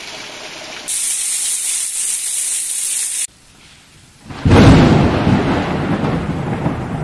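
Heavy rain hissing steadily. After a short lull, about four and a half seconds in, a loud clap of thunder breaks out and rumbles on, slowly dying away.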